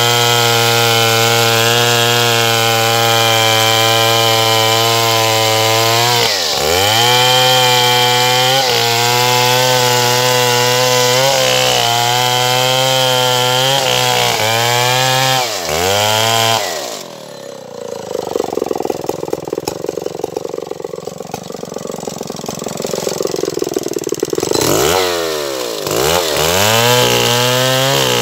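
Stihl 070 two-stroke chainsaw running at high revs as it saws through an acacia log, dipping off the throttle briefly twice. It then drops to a low, uneven idle for about eight seconds before revving back up near the end.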